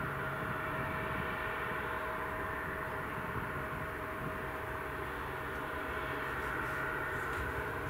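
Bombardier CRJ-900 regional jet taxiing, its two rear-mounted General Electric CF34 turbofans whining steadily at low taxi power with a constant mid-pitched tone over a low hum.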